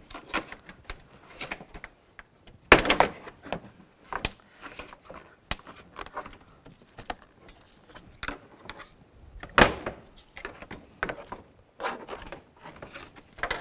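Plastic cargo-area side trim panel of a 2005 Nissan Xterra being pried loose with plastic trim tools: scattered clicks and rattles, with two loud snaps about three seconds in and near ten seconds as its retaining clips let go.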